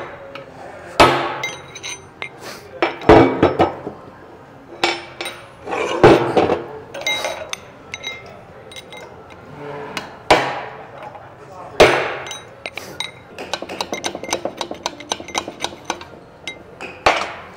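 Hammer striking a steel punch set against a pump bearing's inner race, driving the bearing out of its housing in the pump foot. Sharp, ringing metal strikes come every second or two, then a quick run of lighter taps, and one more hard strike near the end.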